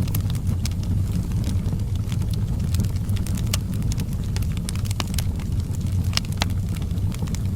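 Wood fire burning in a fireplace, crackling with frequent sharp pops and snaps over a steady low rumble.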